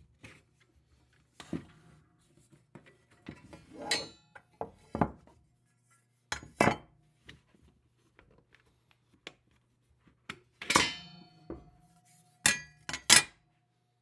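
Black metal rack cable-management finger ducts being taken apart by hand: the front covers are pried off and the parts set down, giving a string of sharp clicks and metallic clinks. One clink about eleven seconds in rings on thinly for a few seconds.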